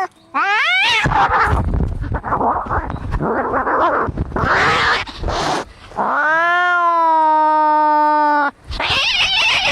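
Cats fighting: a short rising yowl, then several seconds of rough, noisy snarling, then one long, steady caterwaul about six seconds in, cut off by a harsh, noisy screech near the end.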